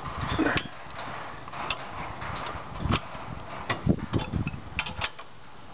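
Irregular metal clicks and knocks from the steel lift arm and sway-link hardware of a compact tractor's three-point hitch being handled by hand, bunching together about four seconds in.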